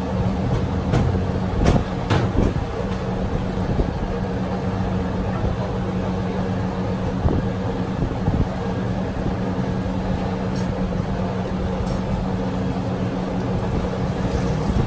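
A steady low hum over constant background noise, with a few short sharp knocks in the first couple of seconds and two more near the end.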